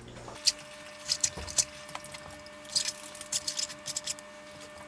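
Small pieces of raw lake trout being tossed in hot sauce in a casserole dish: scattered light clicks and short wet, squishy sounds at irregular intervals, over a faint steady hum.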